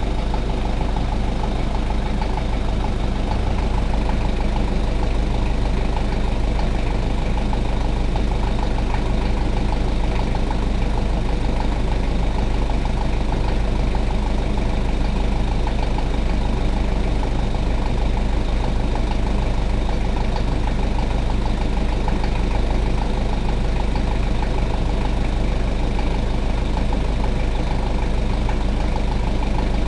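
Toyota 1KZ-T 3.0-litre four-cylinder turbodiesel idling steadily; the owner has recorded it because of an unwanted engine noise.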